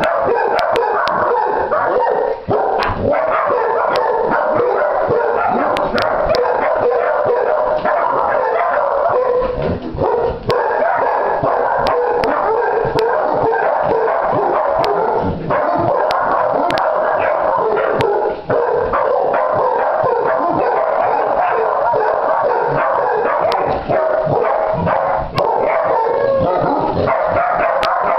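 Several basset hound puppies yipping, whining and howling at once, an unbroken overlapping chorus of high puppy voices.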